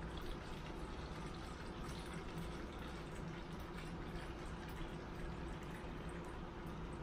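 Water poured from a plastic gallon jug into a SodaStream carbonating bottle, a steady, faint filling sound.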